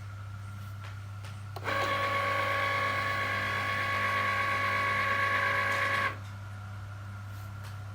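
Cricut Explore Air 2 cutting machine's motor running with a grinding whir and a steady high whine, starting about a second and a half in and cutting off abruptly about four and a half seconds later. A low steady hum sits underneath.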